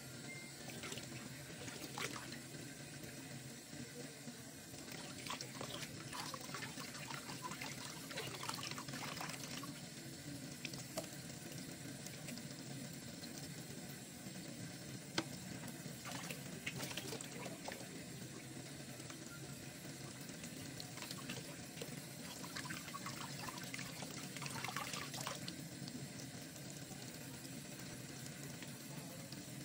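Kitchen tap running a thin steady stream into a water-filled bowl in a stainless steel sink, with scattered small clicks and splashes throughout.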